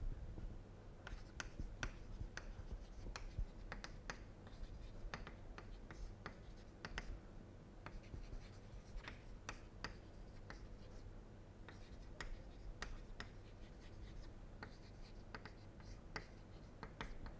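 Chalk writing on a blackboard: a quick, uneven run of short taps and scratches as words are written, over a low steady room hum.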